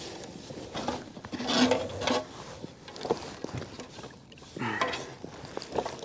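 Handling noises aboard a plastic fishing kayak: scattered knocks, scrapes and rustles as a redfish is measured on a measuring board and lifted with a fish grip. The loudest clatter comes about one and a half seconds in.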